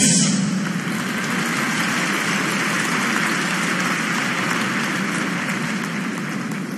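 Arena crowd applauding and cheering, a steady din that slowly dies away toward the end.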